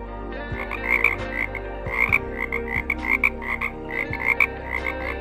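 A frog croaking: a quick series of short, repeated croaks, several a second, beginning about half a second in.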